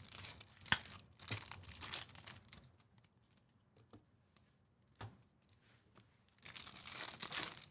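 Trading-card pack wrappers being torn open and crinkled, in two spells of rustling: one at the start lasting about two and a half seconds, and another near the end. A few light clicks fall in the quieter stretch between them.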